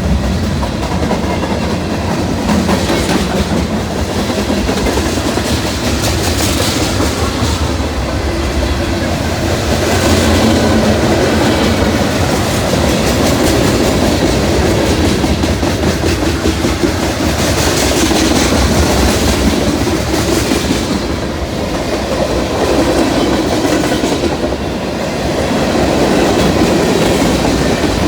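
Freight train rolling past at speed, its wheels clattering over the rail joints with a steady rumble that swells and eases.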